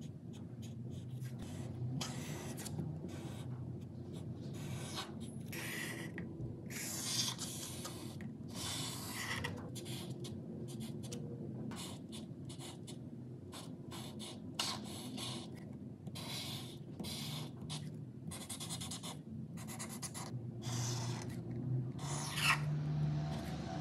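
Felt-tip marker drawing on paper: a quick, irregular run of short and longer scratchy strokes as the tip is dragged across the sheet.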